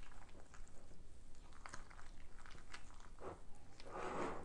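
A spoon stirring thick, gooey macaroni and cheese in a bowl: faint wet squelching with small clicks, a little louder near the end.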